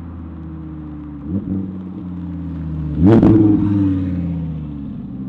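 Audi R8's 5.2-litre V10 running through a new titanium aftermarket exhaust: idling steadily, blipped briefly about a second in, then revved sharply about three seconds in, the loudest moment, with the pitch sinking back slowly afterwards.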